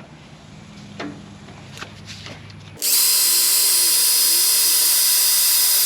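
A power drill spinning a wire brush, starting about three seconds in and running steadily with a high whine, scrubbing rust off a battery cable connection. A few light knocks come before it.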